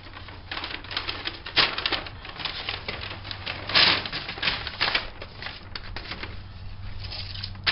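Irregular crackling and rustling of painter's tape and a plastic bag being handled as masking, with the tape pulled and pressed down in quick bursts.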